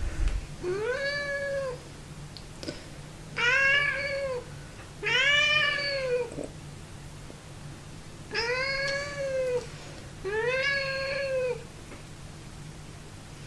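Domestic cat meowing while held: five long, drawn-out meows, each rising and then falling in pitch, about two seconds apart.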